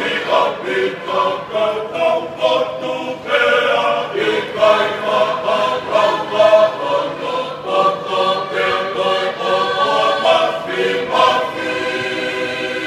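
Tongan church choir singing together, coming in strongly right at the start and holding a sustained chord over the last couple of seconds.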